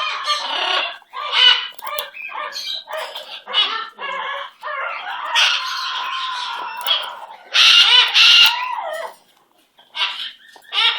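Pet parrot vocalizing: a run of short chattering calls, a longer drawn-out call about five to seven seconds in, then two loud calls near eight seconds.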